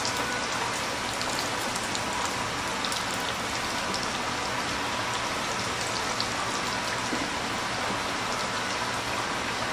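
Karaage chicken deep-frying in a commercial fryer: the hot oil sizzles and crackles steadily as fresh pieces are lowered in.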